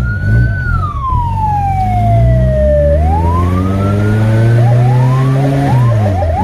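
Fire truck siren: a long tone sliding slowly down, then sweeping back up about three seconds in and breaking into a string of quick rising whoops near the end, over the truck's engine running.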